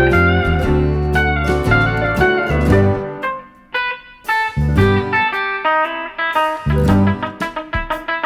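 Instrumental background music with guitar, sliding notes over a bass line. It thins out briefly a few seconds in.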